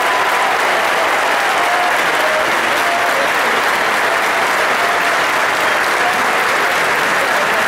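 Large stadium crowd applauding steadily, a dense, unbroken clapping noise.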